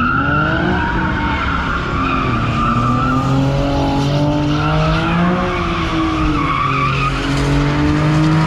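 A car doing a burnout: the engine revs up and is held at high revs while the tires squeal steadily.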